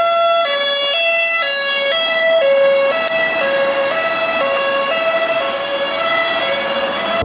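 Police car's two-tone siren alternating between a high and a low note, about one high-low cycle a second.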